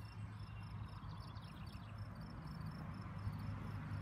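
Insects chirping in a fast, even pulse of high-pitched notes, with a low steady hum underneath.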